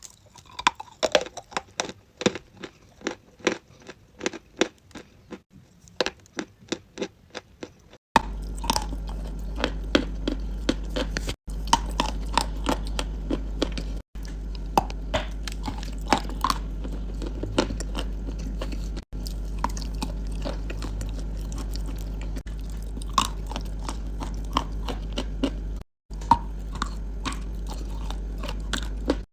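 Close-up biting and chewing of crunchy chalk and clay, with sharp crunches several times a second. After a cut about eight seconds in, a steady low hum runs under the crunching, and the sound breaks off briefly at several edits.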